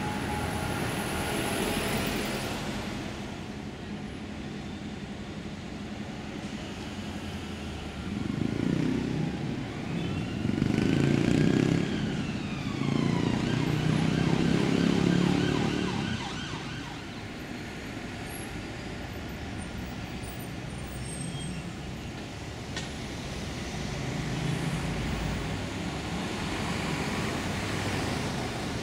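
City street traffic, with buses and cars passing, growing louder as heavy vehicles go by from about eight to sixteen seconds in. A siren wails in the middle, its pitch rising and then falling.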